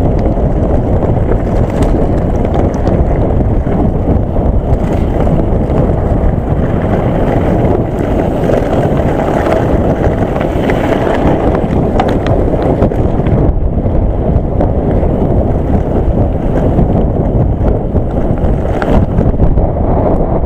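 Nukeproof Mega mountain bike descending a loose gravel track: heavy wind buffeting on the microphone over the rumble of tyres on stones, with many small clicks and rattles from the bike.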